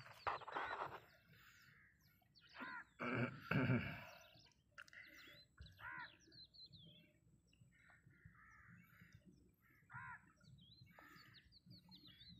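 Birds chirping and calling on and off, with a few louder calls around three seconds in.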